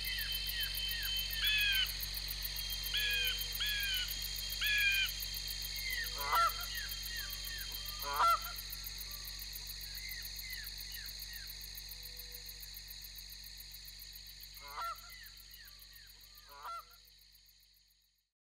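Birds giving short, repeated calls over a steady chorus of crickets, the whole evening soundscape gradually fading out near the end.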